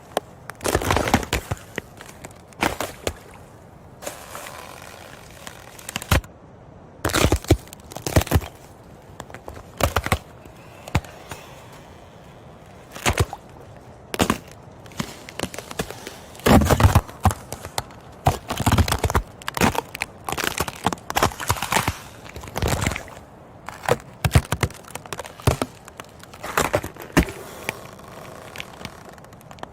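Ice cracking and crunching: a long run of sharp, irregular cracks and snaps, bunched in clusters with short pauses between.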